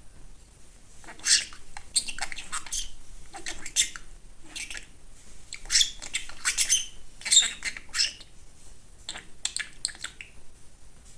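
Budgerigar chattering: clusters of short, high chirps and squawks that start about a second in and stop shortly before the end.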